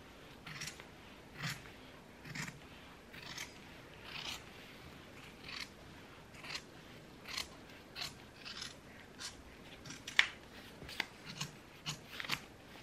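Scissors snipping through plaid fabric, one crisp cut about every second, the cuts coming quicker and closer together near the end.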